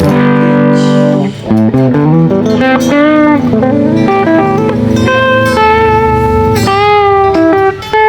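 Difergio MSV electric guitar playing a blues phrase: a chord struck at the start, then single-note lead lines with string bends and held notes.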